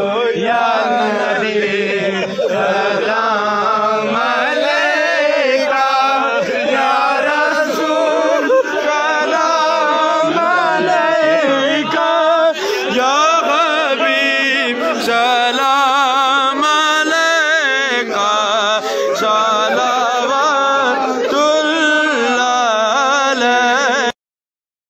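Urdu devotional song sung in long, ornamented phrases that waver in pitch over a steady drone. It cuts off abruptly just before the end.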